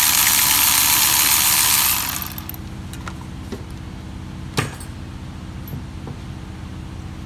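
Milwaukee M12 cordless 3/8-inch ratchet running for about the first two seconds, spinning the 17 mm side bolt out of the engine mount, then stopping. A steady low hum follows, with a single sharp click about four and a half seconds in.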